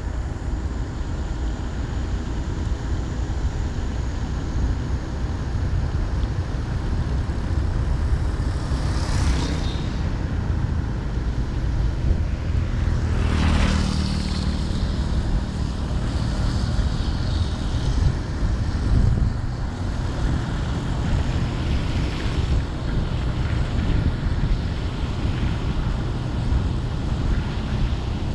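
Steady low rumble of a vehicle travelling along a road, engine and road noise mixed with wind. Two brief louder whooshes come about nine and thirteen seconds in.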